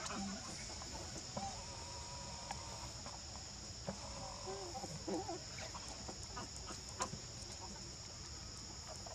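Steady high-pitched insect drone, with a few short, bending animal calls at intervals, strongest about a second in and again around four to five seconds in.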